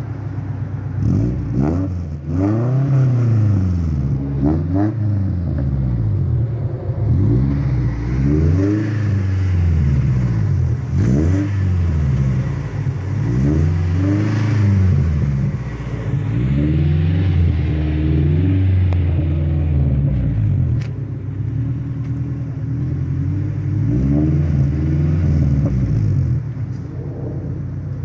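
Car exhaust through an old aftermarket high-performance muffler, the engine revved about ten times in quick rises and falls in pitch with steady idle in between, settling back to idle near the end.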